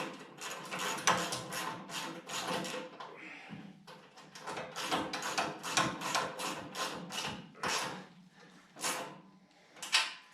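Repeated irregular knocks and clatter of a sheet-metal rolling tool cart being handled and flipped over onto its casters.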